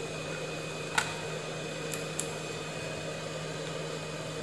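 Steady low electrical hum with a faint high whine, and a sharp click about a second in followed by two lighter ticks near the two-second mark, from handling the circuit board and multimeter probes on the bench.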